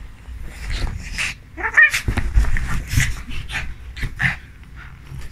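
Small dog play-fighting with a cat: quick irregular panting and snuffling, with a brief wavering whine a little under two seconds in, over low rumbling from the bedding as they tussle.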